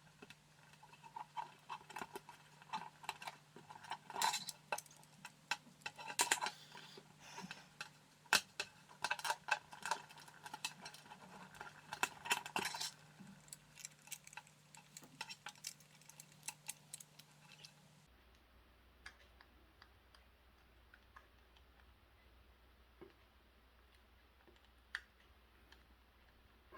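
Irregular small clicks and rattles of hands working a power cable and plug parts while fitting a mains plug: busy for the first half, then only a few scattered clicks.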